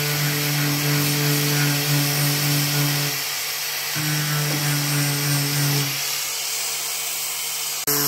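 Handheld rotary power tool running against a washing machine's steel cabinet, stripping rust and paint at the corner. A steady hiss runs throughout, and the sound cuts off abruptly near the end.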